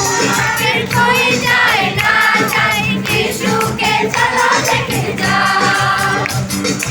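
Choir singing a Christmas carol over steady instrumental accompaniment.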